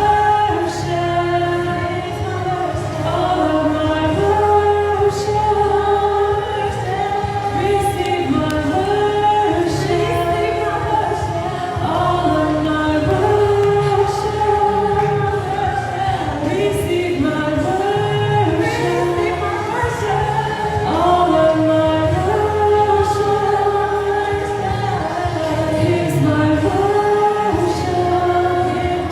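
Worship song: a sung melody of held, gliding notes over a steady instrumental accompaniment.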